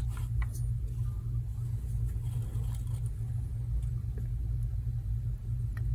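Steady low background rumble, with a few faint clicks as the laptop is handled and switched on.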